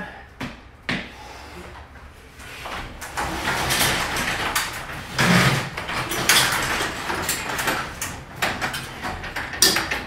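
Sectional garage door lifted by hand, rolling up its tracks with a rattling rumble for several seconds, its weight carried by newly installed torsion springs; a sharp knock near the end.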